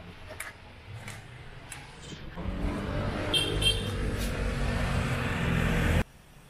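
A motor vehicle's engine running close by, a steady low hum that grows louder over a few seconds and then cuts off abruptly.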